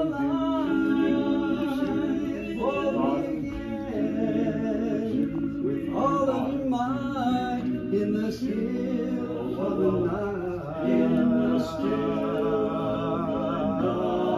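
A barbershop quartet singing a cappella, several voices in close harmony with sustained, gliding chords.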